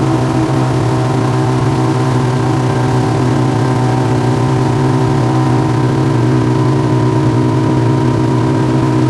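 A motor running steadily at constant speed, an even engine drone that does not change pitch.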